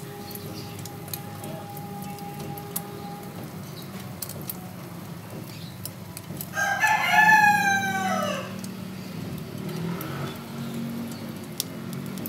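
A rooster crowing once, about six and a half seconds in: one call of about two seconds that falls in pitch at its end.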